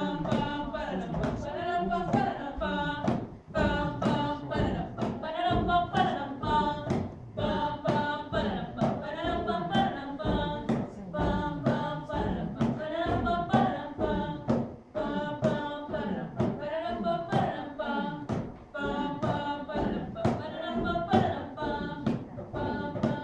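Live stage music: several voices singing a song together to a guitar, over a steady beat of thumps about twice a second.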